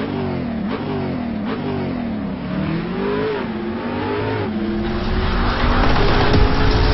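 An engine revving, its pitch sweeping up and down several times, then holding one steady note about four and a half seconds in while a rushing noise builds.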